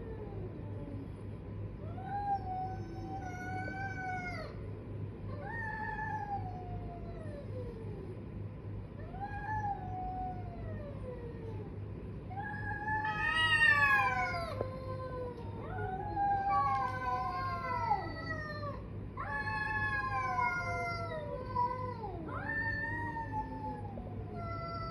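Two domestic cats caterwauling at each other in a fight standoff: a series of long, drawn-out yowls that slide down in pitch, one after another. About halfway through the two voices overlap and the yowling is at its loudest.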